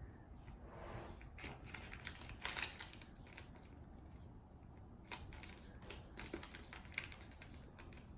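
Square sheet of origami paper being folded and creased by hand: faint, scattered crisp crinkles and taps, a little louder about two and a half seconds in.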